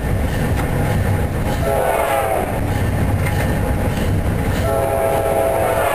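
Passenger train running with a steady rumble of its wheels on the rails, while the EMD F40 locomotive's horn sounds twice: a blast about two seconds in and a longer one near the end.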